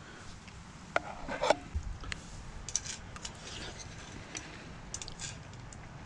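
A spoon clinking and scraping against a metal camping pot during eating, in scattered short clicks and scrapes.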